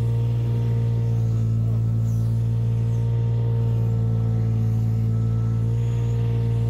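Amphibious excavator's diesel engine running steadily, heard from inside the operator's cab: an even low drone with a faint steady higher whine over it.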